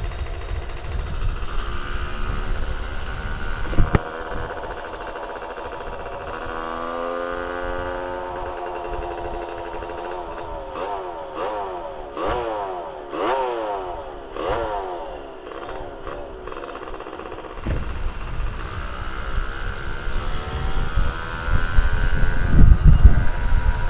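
Modified Yamaha V80 two-stroke moped engine, fitted with a Kawasaki Ninja R cylinder block and head, being ridden hard. Its pitch climbs, then rises and drops several times in quick succession through the middle as it is revved through the gears. There is low wind rumble on the microphone at the start and again near the end.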